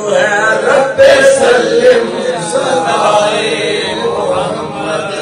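Voices chanting a line of devotional verse together in a steady, drawn-out melody.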